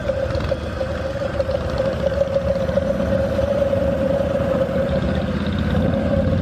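1985 Harley-Davidson FXSB V-twin engine running, with a steady high whine over its low rumble. This is the unexplained noise that comes only when the engine is hot; the owner has not found its source.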